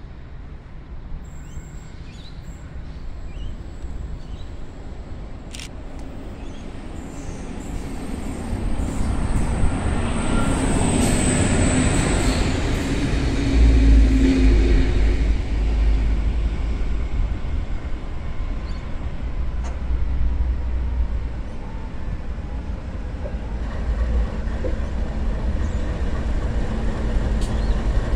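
Pacific National NR-class diesel-electric locomotive at the head of a slow freight train, its engine rumble growing louder as it approaches and draws alongside, with a deep low rumble from about halfway through.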